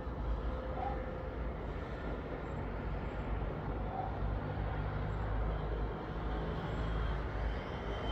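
Steady low rumble of distant road traffic under an even outdoor hiss, with a couple of faint short chirps.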